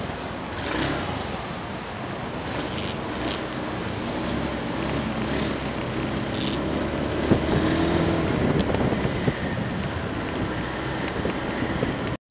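Steady outdoor street traffic noise from cars running, with a few faint clicks and rattles.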